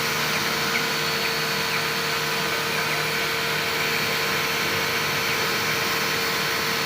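Electric pressure washer running steadily, a constant motor-and-pump hum.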